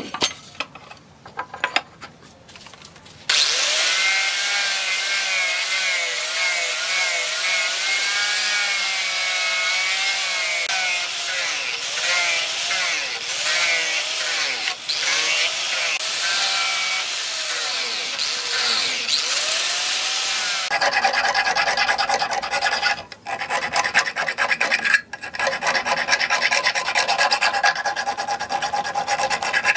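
Handheld angle grinder with a sanding disc on a backing pad, running against a steel knife blade. It starts about three seconds in after a few light handling clicks, giving a steady rasp with a wavering whine. The sound turns coarser about two-thirds of the way through, with two brief breaks as the disc comes off the steel.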